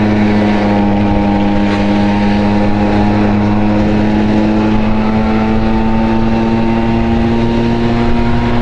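A Honda Dio AF27 scooter's small two-stroke engine running under way at a steady cruise. Its pitch creeps slowly upward.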